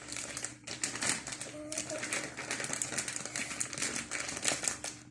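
Flour bag crinkling and rustling with rapid irregular taps as flour is shaken out of it.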